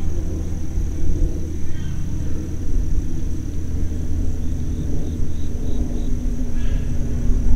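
Outdoor field ambience: a steady low rumble with a continuous high-pitched drone over it and a short run of faint chirps about halfway through. A low engine-like hum grows in near the end.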